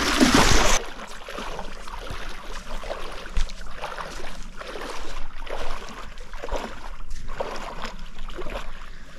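Shallow lake water lapping and sloshing, with small irregular splashes over a steady hiss. A louder rush of noise in the first second cuts off abruptly.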